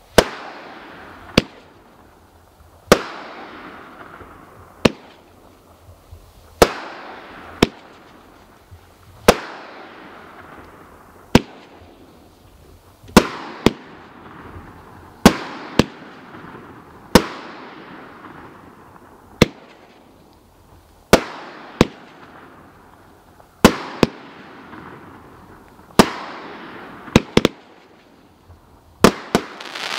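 Area 51 Fireworks 'Cruisin' aerial repeater cake firing shot after shot, a sharp bang about every one to two seconds, sometimes two close together. Each bang is followed by a fading hiss as the silver-white stars burst and fall.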